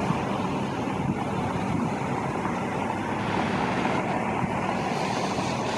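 Steady outdoor rush of street traffic with a low engine hum, mixed with the rushing of water gushing from an open fire hydrant.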